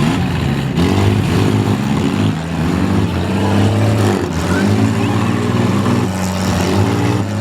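Demolition-derby minivans, SUVs and small trucks running and revving their engines together, a loud, continuous din of several engines at shifting pitches.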